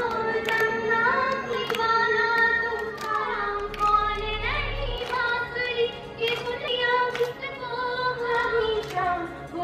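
A teenage girl singing a solo melody through a microphone and loudspeakers, holding long notes and sliding between pitches, with drum strokes keeping time beneath her voice.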